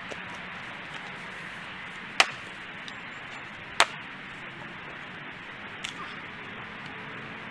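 Two sharp cracks of a Fiskars X27 splitting axe striking and splitting firewood rounds on the ground, about a second and a half apart, the first about two seconds in. A lighter knock of wood follows near the end, over a steady background hiss.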